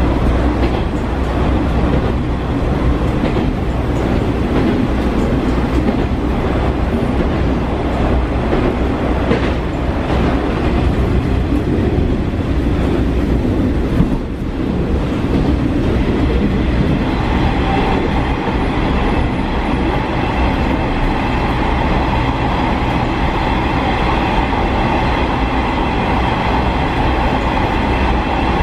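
Running noise inside a JR Shikoku KiHa 40 diesel railcar: a steady engine and wheel-on-rail rumble, with occasional knocks. A little past halfway, a steady high-pitched whine joins in and holds.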